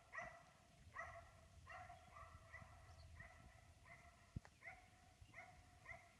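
A dog barking in a steady series, about two short barks a second, faint and distant.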